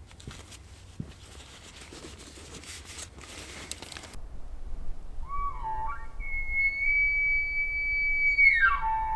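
Elk locate bugle blown on a call: a tone that rises, holds a long high steady whistle, then drops in pitch near the end. Before it, faint rustling and clicking of gear being handled.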